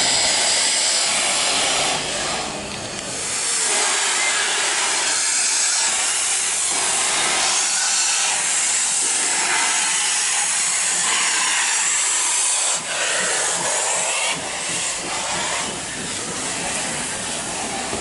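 Steam locomotive BFD 3, a Swiss HG 3/4 rack-and-adhesion engine, hissing loudly as steam blasts out around its cylinders, a steady rush with a few short dips.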